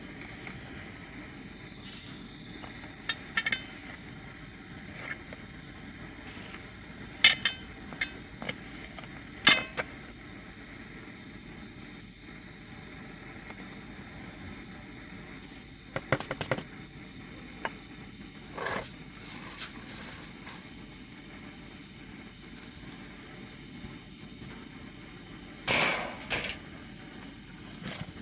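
Scattered sharp knocks and clinks of hard objects being handled, some in quick doubles and triples, over a steady background hiss with a thin high tone. The loudest cluster comes near the end.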